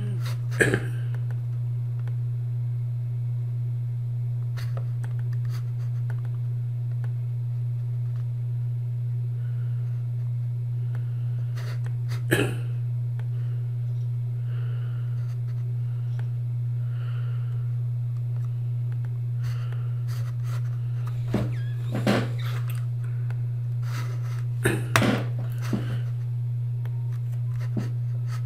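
A steady low electrical hum, with a few sharp clicks from working a computer to draw: one about a second in, one near the middle, and a cluster in the last few seconds.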